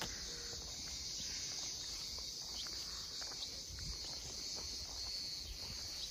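Steady high-pitched chorus of insects, with a few faint clicks scattered through it.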